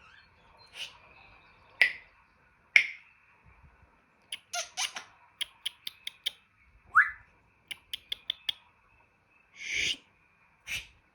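African grey parrot making a run of sharp clicks and pops, with a short falling whistle about seven seconds in and a longer breathy, hissing burst near the end.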